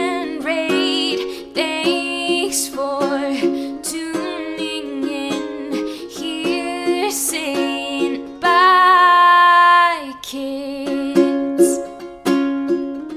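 Background music led by plucked ukulele-like strings, with a wavering, sliding melody line and one long held note a little over halfway through.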